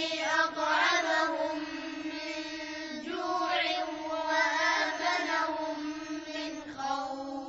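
Quranic recitation chanted melodically in a high voice, with long drawn-out notes and short breaks between phrases.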